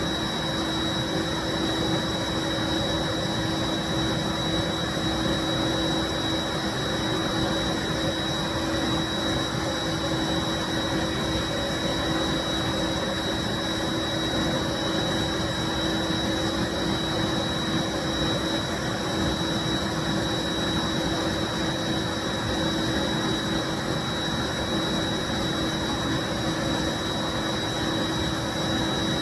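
1995 Bissell SC deep cleaning machine running steadily: an even motor rush with a constant high whine and a lower hum.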